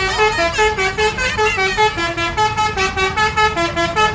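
Bus 'telolet' musical horn playing a quick tune of short stepped notes, several a second, over the low rumble of engines.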